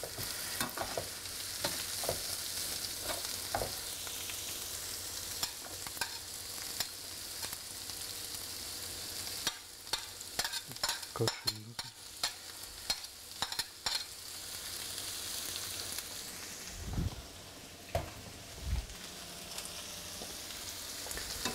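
Sliced onions sizzling in oil in a frying pan, with a slotted spoon clicking and scraping against the pan as they are stirred. In the middle comes a quick run of taps as more onion is scraped off a plate into the pan, and near the end two low thumps.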